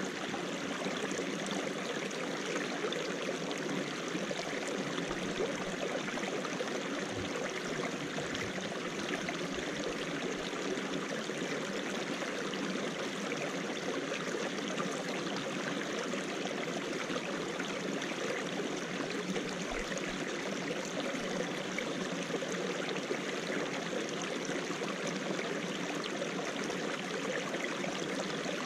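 Small rocky mountain stream of snowmelt trickling and spilling over stones in little cascades, a steady, even water sound.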